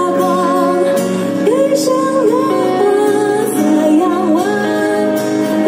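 Live band playing a song: a woman singing with vibrato over acoustic and electric guitar, amplified through the stage speakers.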